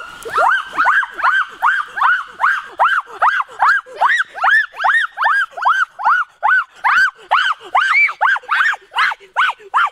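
A boy's high-pitched yelping cries, short rising-and-falling shrieks repeated about three times a second without a break.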